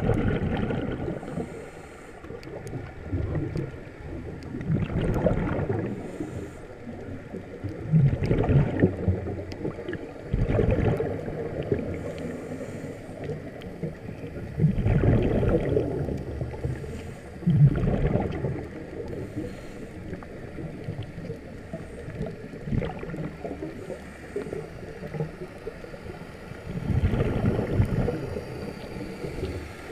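Scuba diver's exhaled bubbles from a regulator, gurgling past an underwater camera housing in bursts a few seconds apart, with a longer pause late on. A faint steady hum runs underneath.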